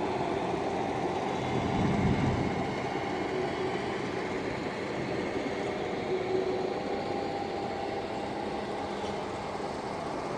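Engine noise running steadily, with a faint steady whine over a low hum and a slight swell about two seconds in.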